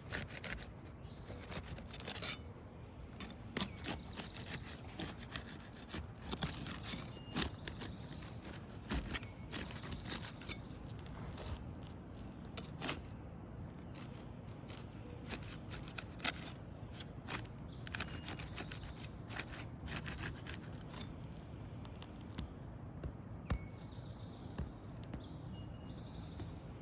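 A flat pry tool worked under asphalt roof shingles, making irregular sharp clicks and scrapes as the shingle seal strips are broken loose. The clicking grows sparse near the end.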